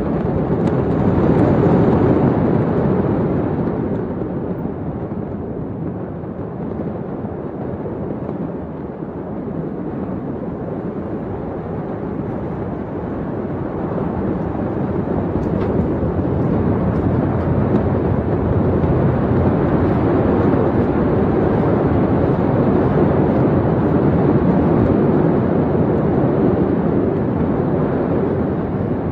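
Continuous low rumbling roar from the burning port warehouse and its rising smoke column just after the first, smaller explosion. It eases off a few seconds in and builds up again.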